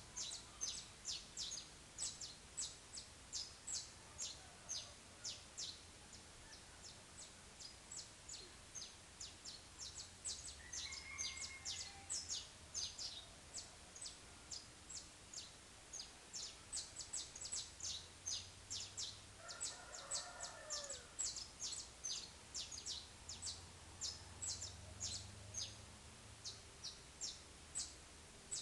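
Saffron finch (canário-da-terra) singing its repetitive 'chapinha' song: a steady run of short, sharp high notes about three a second, at times faster. A fainter, lower call comes twice, near the middle and about two-thirds of the way through.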